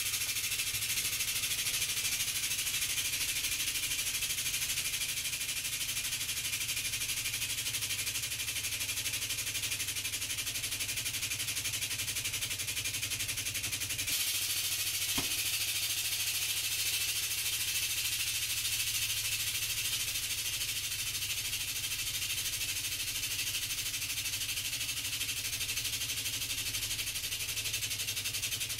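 Hydraulic press running steadily with a constant hiss over a low hum, growing brighter about halfway through as the ram bears down. A single sharp snap comes soon after, as the plastic Carnivine figure under the ram breaks.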